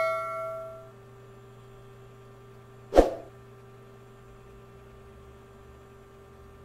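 The ringing tail of a subscribe-button bell chime sound effect dying away in the first second, then a steady low hum with one short thump about three seconds in.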